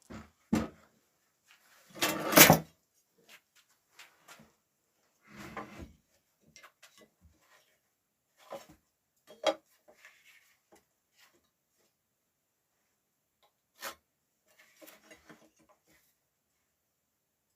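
Irregular knocks and clunks of pieces of rough timber being handled and set down, loudest in a short clatter about two seconds in, then a few scattered lighter knocks and clicks.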